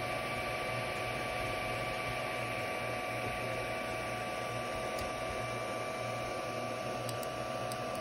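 Voxelab FDM 3D printer running: a steady whir of its cooling fans with a constant high whine from the machine's motors and electronics, and a few faint ticks near the end.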